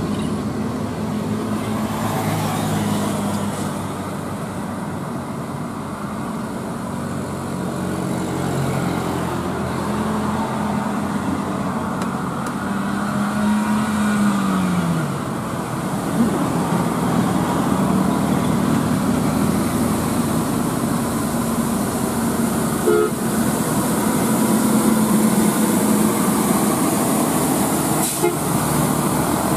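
Mitsubishi Fuso diesel trucks climbing a steep road, their engines running under load with a steady low drone over road noise. About halfway through, one engine note sinks in pitch.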